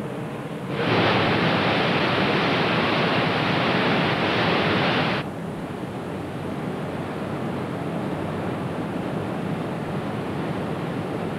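Steady rushing of a river and waterfall. A louder, hissier rush comes in about a second in and cuts off abruptly around five seconds, leaving the softer steady rush.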